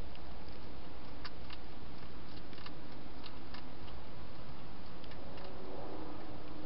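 Hedgehog eating from a bowl inside a plastic feeding box: a run of short, sharp crunching clicks, then a few more about five seconds in, over a steady background hiss.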